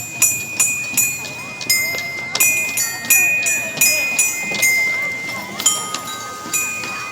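Metal chimes struck by hand in an uneven rhythm, about two strikes a second, each note ringing on after the hit; the strikes thin out near the end.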